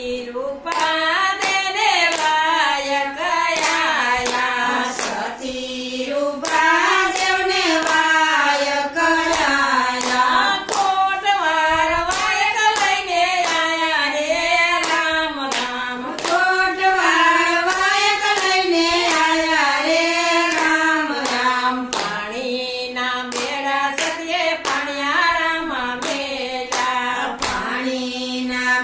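A group of women singing a Gujarati devotional bhajan together, with steady hand claps keeping time and no instruments.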